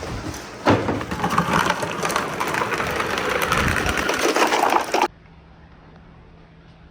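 Marbles rolling and clattering along a wooden marble run track in a dense, continuous rattle, which cuts off abruptly about five seconds in; after that only a few faint clicks.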